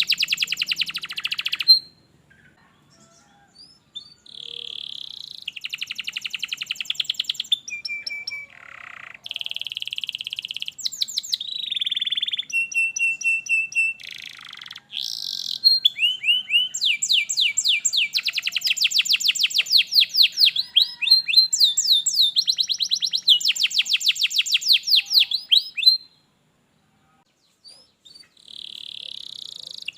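Domestic canary singing in long, fast trills and rolling phrases, with short breaks between phrases. The song drops out briefly near the start and again for a couple of seconds near the end.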